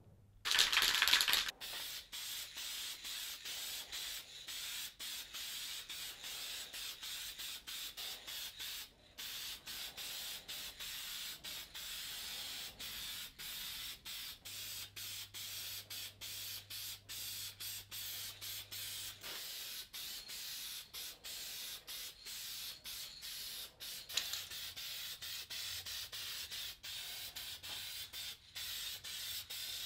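Aerosol spray can of hammered-finish black paint hissing as it is sprayed on in long passes broken by many brief releases of the nozzle. It starts with a louder burst.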